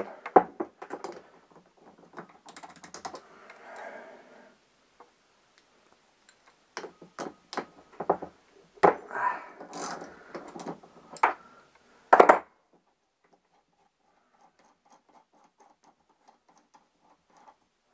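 Hands working on a two-stroke Keihin carburettor and its rubber fuel hoses: scattered clicks, taps and rustles of small parts, with a louder knock about twelve seconds in. Near the end comes a run of faint quick ticks.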